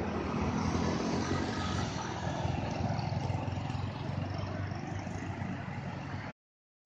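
Road traffic dominated by a heavy diesel engine's low, steady drone as a coach bus and a truck pull away, with tyre and car noise over it. The sound easing slightly, then cutting off abruptly about six seconds in.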